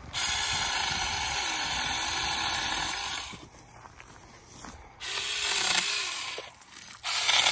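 Saker 4-inch cordless 20 V mini electric chainsaw running and cutting through small pine trunks in three runs. The first lasts about three seconds, a shorter one comes about five seconds in, and a third starts near the end. During the cuts the motor's pitch dips and rises.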